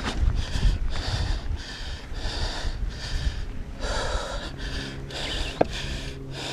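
A mountain biker panting hard, about two breaths a second, over a low rumble. A low steady hum comes in about four and a half seconds in.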